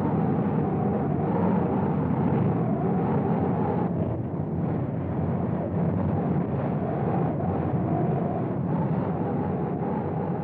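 Strong storm wind blowing steadily, a deep noise that swells a little and dips briefly about four seconds in.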